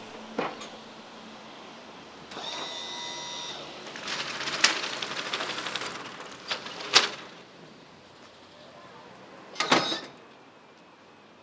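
A string of knocks and clatters: a sharp knock just after the start, a rattling stretch in the middle, two sharp knocks, and a louder bang near the end.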